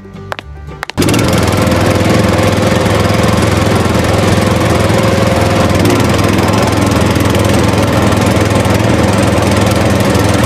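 Engine running steadily at one pace, the sound of a tractor engine, cutting in abruptly about a second in as the music stops.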